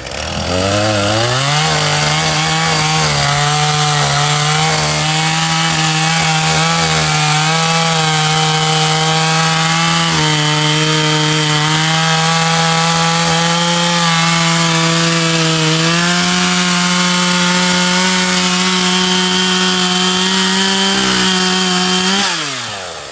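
Poulan Pro 5020 chainsaw's 50cc two-stroke engine revving up to full throttle and holding there as the 20-inch bar cuts through an oak log, its pitch shifting slightly under load. Near the end the throttle is released and the engine winds down.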